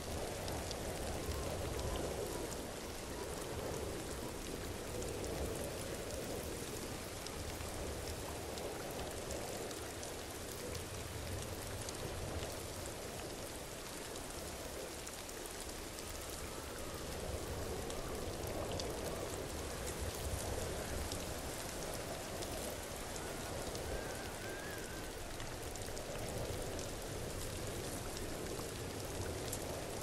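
Waterfall: a steady, even rush and patter of falling water splashing, like heavy rain.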